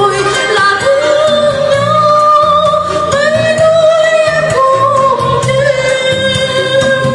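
A song with a solo singer, in Vietnamese folk-pop style, holding long, wavering notes over instrumental backing.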